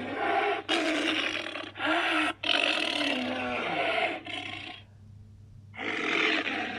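Monster roar sound effects: a string of harsh creature roars and growls, about five cut back-to-back with abrupt edits, then a pause of about a second and one more roar.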